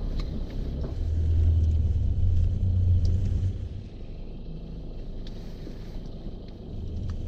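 A low rumble with a few faint ticks over it; it eases off about four seconds in.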